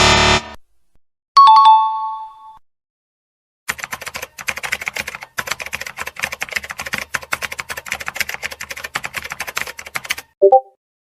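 A short ringing ding, then about six seconds of rapid computer keyboard typing, a fast patter of key clicks that stops suddenly, followed by a brief blip.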